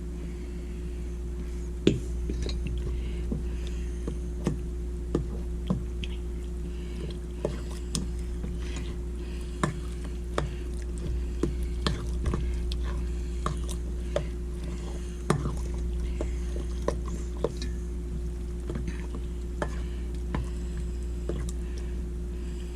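Moist cornbread dressing being stirred and mixed in a pan: soft wet squishing with irregular sharp taps, roughly one a second, the loudest about two seconds in and again past the middle. A steady low electrical hum runs underneath.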